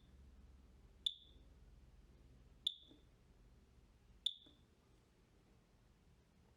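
Macurco DVP-120 gas detection control panel giving short, high keypad beeps as the right arrow button is pressed, three times about a second and a half apart.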